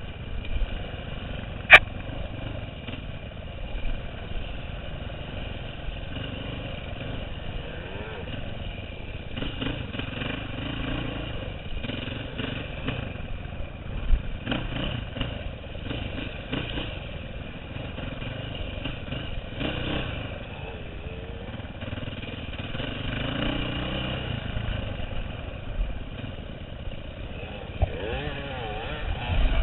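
2009 KTM 530 EXC's single-cylinder four-stroke engine running under changing throttle, heard from a helmet-mounted camera. Knocks and rattles come through as the bike crosses rough ground, with one sharp click about two seconds in.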